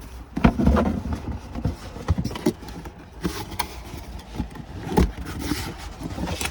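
Irregular clicks, knocks and scraping of a replacement car accelerator pedal assembly being handled, with a louder bump about half a second in and another about five seconds in.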